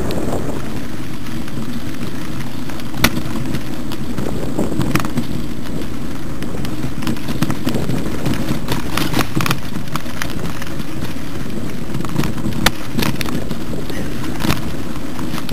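Mountain bike riding over a rough dirt trail: steady low rumble of wind and rolling on the camera microphone, with scattered sharp clicks and knocks from jolts over the ground, the sharpest about 3 seconds in and again about 12 seconds in.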